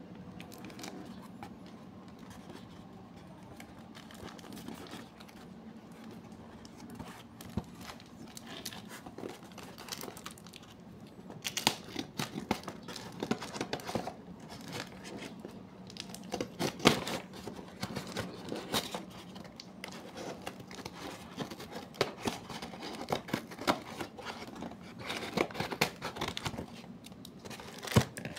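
Scissors cutting through a taped cardboard-and-plastic parcel, with paper and plastic tearing and crinkling. It is quieter for the first few seconds, then a dense run of sharp snips and crackles follows.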